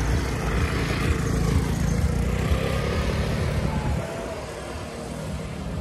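A small motor scooter passing close by and pulling away, its engine noise dropping off about four seconds in.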